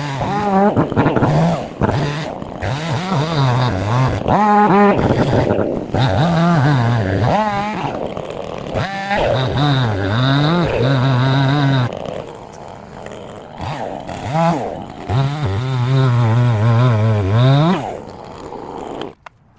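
Two-stroke chainsaw running in a cut, its engine pitch rising and falling again and again as it revs and loads, then cutting off near the end.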